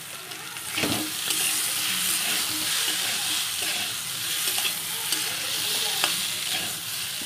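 Boiled potato chunks and spice paste sizzling in oil in a metal kadai while a metal spatula stirs and scrapes them around; the sizzle gets louder about a second in, with short scrapes of the spatula against the pan.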